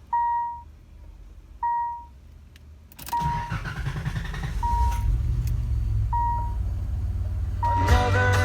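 Dashboard warning chime beeping twice, then about three seconds in the 1987 Nissan 300ZX Turbo's V6 turbo engine cranks, catches quickly and settles into a steady idle. The chime keeps beeping about every second and a half over the running engine.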